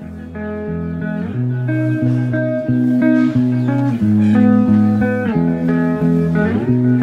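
Background music led by a guitar, with held notes over a low bass line, swelling in over about the first second.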